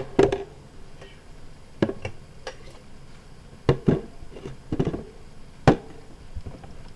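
Glassware and bar tools being handled and set down: about eight separate sharp clinks and knocks, scattered irregularly.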